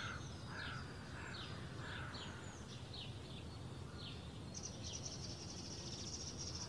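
Small birds chirping outdoors in short, repeated downward notes, a few a second, over steady background noise. A high, thin buzzing trill joins about four and a half seconds in.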